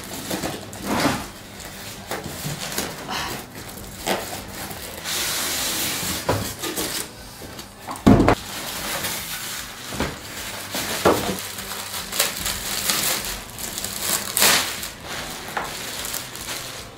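Unboxing noises: a cardboard box and foam packing blocks scraping and knocking as an air purifier is lifted out, with a longer stretch of rustling about five to seven seconds in and a heavy thud just after eight seconds. Near the end a plastic wrapping bag crinkles.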